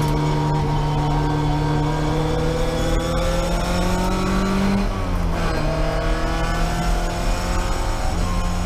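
Racing MGB's four-cylinder engine heard from inside the cabin, running hard under load. Its pitch climbs slowly, drops with a brief dip in loudness about five seconds in, then holds steady again.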